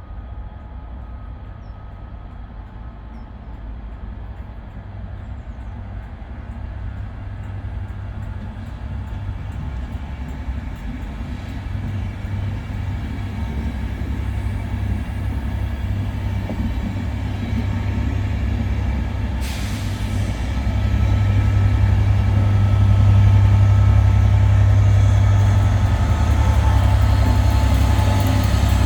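A train approaching, its deep rumble growing steadily louder, with a short hiss about two-thirds of the way through.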